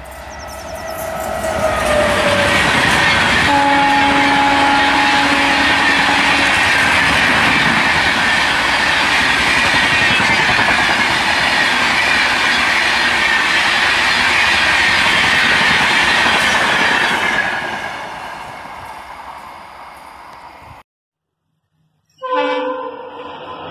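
Electric locomotive and a long train of passenger coaches passing at speed. The rush of wheels on rail builds over the first two seconds, a horn sounds for about three seconds a few seconds in, and the steady clatter of the coaches goes on until it fades away about 17 seconds in. The sound cuts out for about a second, then a quieter sound comes in near the end.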